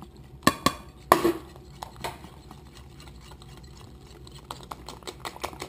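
Wire hand whisk beating eggs and icing sugar in a plastic bowl: a stirring swish with sharp clicks and taps of the whisk against the bowl, the loudest in the first two seconds and quicker small ticks near the end.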